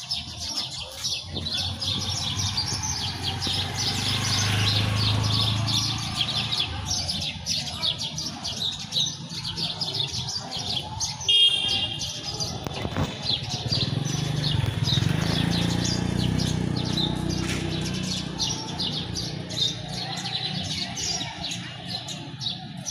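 Many small birds chirping continuously in a tree, over low street traffic whose engine rumble swells twice as vehicles pass. About eleven seconds in comes a brief sharp, high-pitched sound, the loudest moment.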